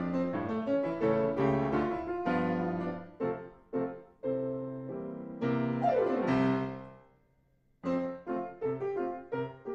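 Solo piano playing a lively accompaniment, with a quick downward run about six seconds in, a brief break, then short detached chords.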